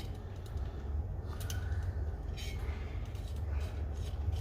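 A screwdriver working the small steel screws that hold the top of a Coleman 530 pocket stove, giving a few faint metallic clicks, over a steady low room hum.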